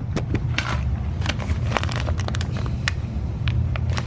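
Irregular small clicks, crackles and rustles of hands handling bumper hardware, over a steady low rumble.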